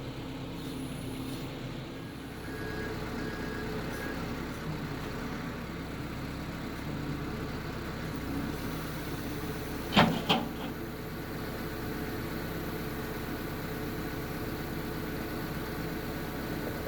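John Deere 310L EP backhoe's diesel engine running steadily, with two sharp knocks in quick succession about ten seconds in.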